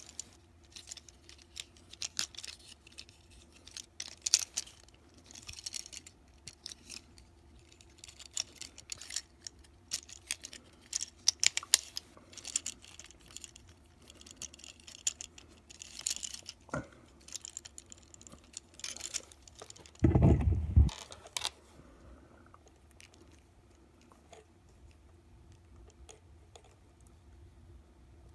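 Plastic Transformers Siege Chromia action figure being handled and transformed: a run of small clicks and rattles as its joints and panels are moved. About twenty seconds in there is one louder, low thump, and after that only faint ticks.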